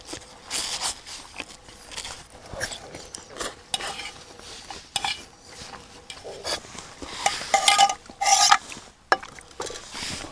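A metal fork scraping and clinking against stainless steel camping pots as the last of a meal is eaten out of them, with a few louder ringing clanks of metal cookware about three-quarters of the way through.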